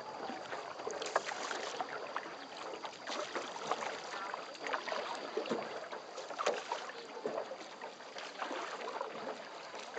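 Water splashing and lapping around a small rowed boat, with irregular splashes from the oars.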